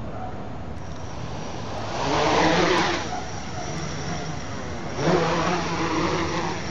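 Small quadcopter's electric motors and propellers buzzing in flight, surging louder twice for a second or so as the throttle is raised.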